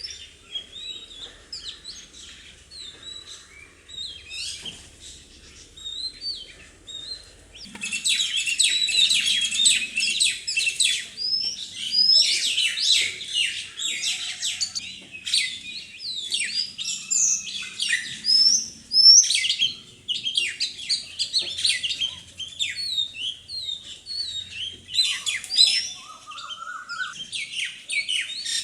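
Parrots calling in many short, overlapping chirps and squawks. They are sparse at first, then a dense, loud burst of chattering starts about eight seconds in and thins out over the last third.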